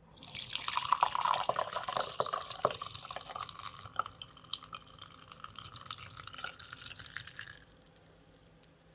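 Milk being poured and strained into a glass: a steady splashing pour whose pitch rises slowly as the glass fills, stopping about a second before the end.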